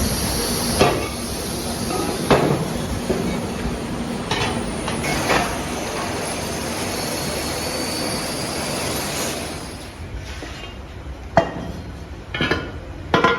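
Steady hissing machine noise in a metalworking shop, with metal knocks and clinks of iron parts being handled. The hiss stops about ten seconds in, and a few sharper metal clinks follow near the end.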